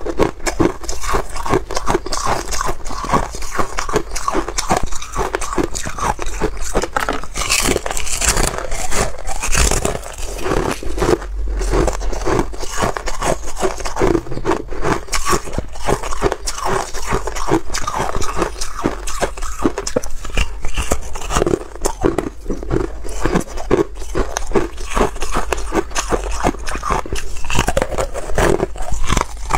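Close-up crunching and crackling of frozen cola ice being bitten and chewed, a dense run of sharp cracks that goes on without a break.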